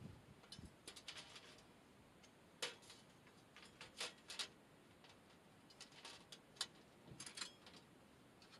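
Metal folding table being unfolded: a scattering of short, sharp metal clicks and clacks as its legs swing out and snap into place.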